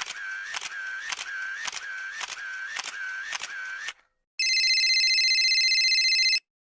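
Two sound effects in turn: a sharp click with a short whir after it, repeating nearly twice a second for about four seconds, then after a brief gap a steady electronic buzzer tone lasting about two seconds.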